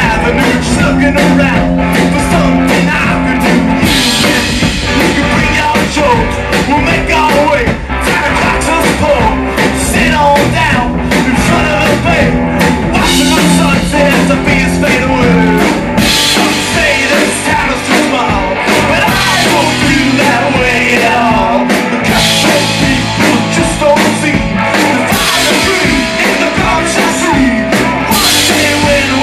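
Live rock band playing at full volume: distorted electric guitar, electric bass and drum kit.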